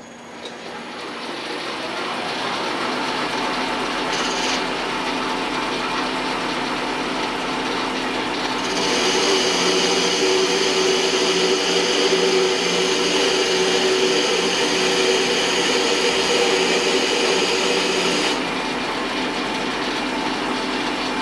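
Small metal lathe spindle spinning up and running steadily while a carbide CCMT insert turns the outside diameter of a free-cutting steel bar. A louder, brighter cutting sound runs for about ten seconds in the middle, then drops back to the spindle alone.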